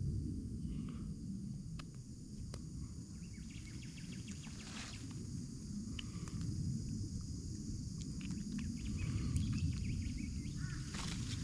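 Outdoor bush ambience: a steady low rumble under a high, even hiss, with faint bird calls and scattered small clicks.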